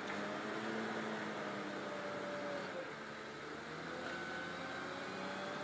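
A machine running steadily, a low hum with a tone that wavers slowly in pitch over a wash of noise.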